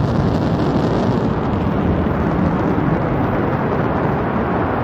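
New Shepard booster's BE-3 hydrogen-oxygen rocket engine firing as the booster hovers and descends to land: a steady, deep rushing roar of exhaust noise that does not let up.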